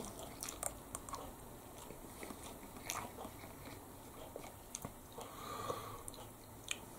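A person chewing a mouthful of instant ramen noodles with the mouth closed: faint wet mouth clicks and smacks scattered through the chewing.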